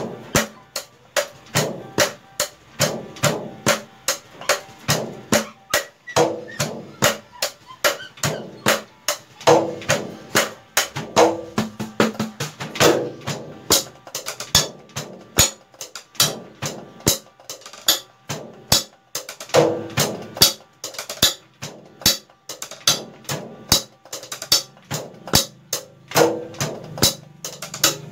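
Unamplified acoustic noise of a DIY electronic drum kit being played, as heard without its sound module: sticks clicking on the trigger pads in a steady beat of about three hits a second, mixed with duller low thuds and short ringing hits.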